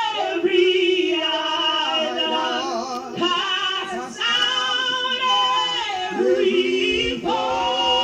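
Woman singing a gospel hymn solo into a microphone, stretching the words into long held notes with vibrato and sliding runs, in a few phrases with brief breaks between them.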